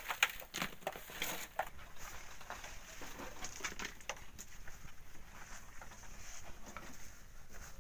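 Shovels scraping and biting into wet volcanic sand and gravel: a quick run of strokes in the first two seconds, then sparser scrapes.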